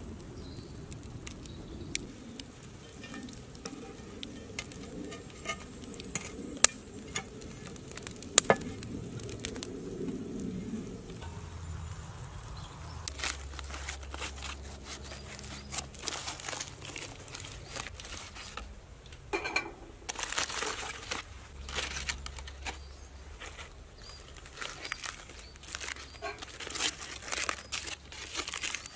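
Aluminium foil crinkling and tearing in irregular bursts as it is peeled off baked potatoes, busiest in the second half. Before that, a low steady background with a few sharp cracks from a wood fire.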